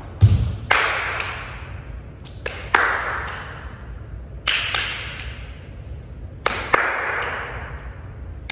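Body percussion: hand claps and a foot stomp. Sharp hits come mostly in pairs about every two seconds, each ringing out in the echo of a large, bare room.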